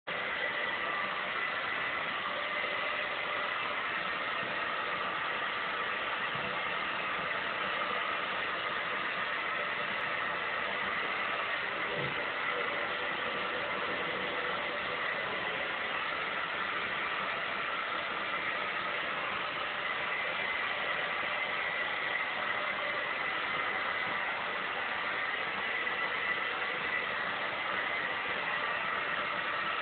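Steady hiss with a faint constant hum that does not change, with a couple of faint soft thumps.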